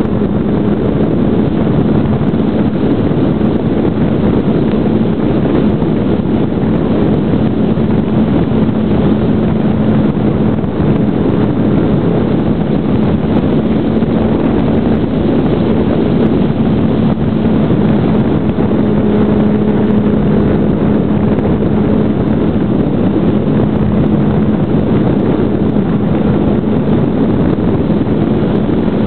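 Brushless electric motor and propeller of a GWS Slow Stick RC plane running steadily, heard from a camera on board, with a constant hum and heavy wind rush over the microphone.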